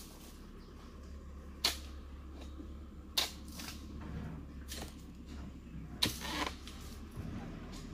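Pruning blade chopping into the frond bases of an oil palm: sharp single strikes about every second and a half, the one about six seconds in followed by a short rustle.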